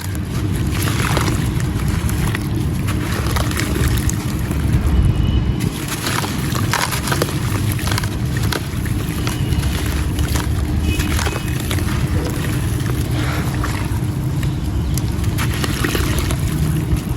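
Gritty brown sand-cement stone chunks being crumbled in water: a continuous wet crunching and sloshing, full of small gritty crackles.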